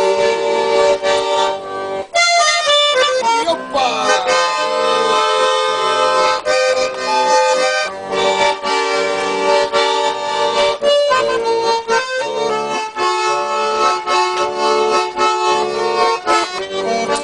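Accordion playing an instrumental break of a Russian folk-style song: a rhythmic melody over sustained chords, with one short shouted exclamation about four seconds in.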